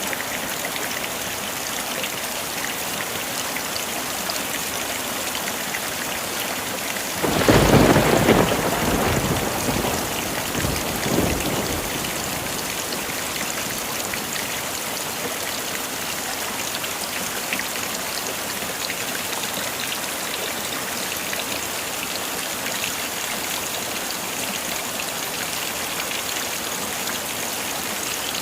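Steady heavy rain hissing throughout. About seven seconds in, one thunderclap breaks out and rolls away over the next few seconds, with a second, weaker rumble near the eleventh second.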